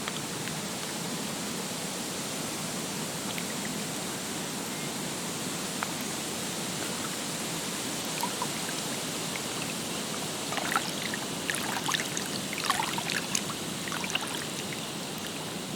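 Lake water running as a steady wash, with a flurry of small splashes and plinks in the second half.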